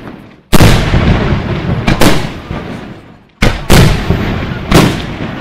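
Aerial firework shells bursting: five loud bangs, two of them in quick succession just past the middle, each trailing off in a long echo.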